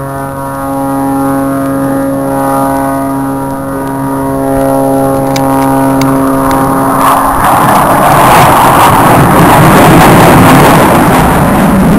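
Small propeller aerobatic airplane overhead, its engine droning at a steady pitch. About seven seconds in the steady drone gives way to a louder rushing roar that keeps building.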